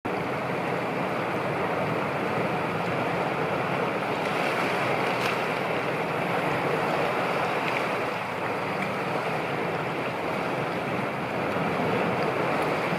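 Steady wash of choppy, wind-whipped sea waves, with wind blowing.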